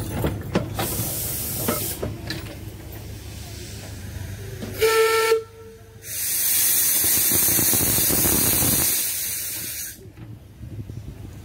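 Hunslet 4-6-0 narrow-gauge steam locomotive gives a short whistle toot of about half a second, then steam hisses loudly and steadily for about four seconds from its cylinder drain cocks, then cuts off.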